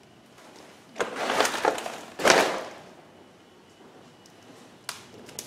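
Crunching and scraping on a debris-strewn floor: a rough burst about a second in and a louder one about two seconds in, then a sharp click near the end.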